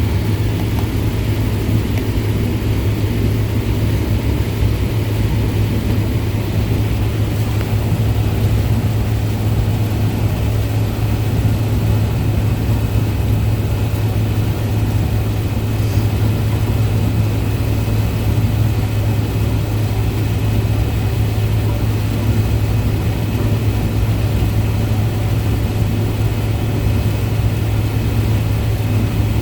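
Farm tractor's diesel engine running at a steady speed, a constant deep hum with no change in pitch.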